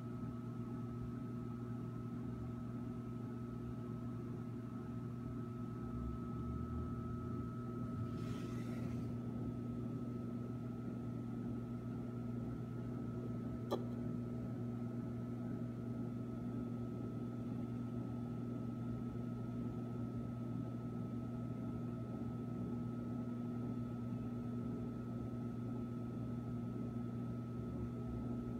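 Steady electrical hum of running aquarium equipment, made of several constant tones over a low drone. A brief hiss comes about eight seconds in, and a single sharp click about halfway through.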